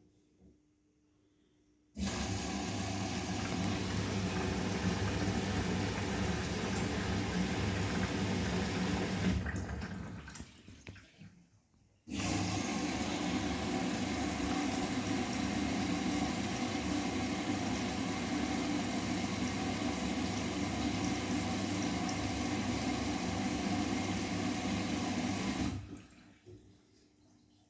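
Bosch WGA25202TR washing machine filling with water: water rushes in for about eight seconds, stops, then rushes in again for about fourteen seconds, each time starting and stopping abruptly.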